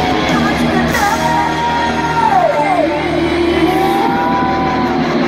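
Live rock concert over a large outdoor PA: amplified band with a sung vocal line of held, sliding notes, and shouts from the crowd.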